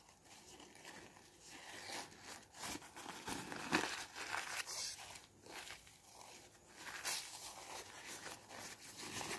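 A paper tissue rubbing and wiping across a smartphone's glass screen, crinkling in the hand: faint, uneven rustling strokes as the bare screen is cleaned of grease.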